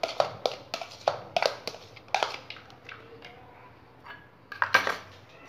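A spoon scraping and tapping chopped onion out of a plastic bowl into an aluminium pot, a quick run of knocks about three a second that fades after two seconds. Near the end comes a short clatter of a spoon in a small metal bowl.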